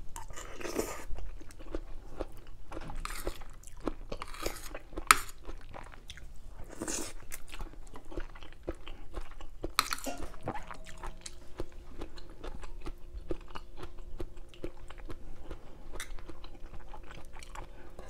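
Close-miked chewing and crunching of a mouthful of catfish curry with pickled bamboo shoots, with many small wet clicks of the mouth and a few brief louder crunches.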